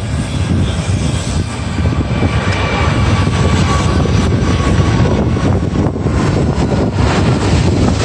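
Twin-engine passenger jet flying low overhead on landing approach: a loud, steady engine rumble with a faint high whine over it.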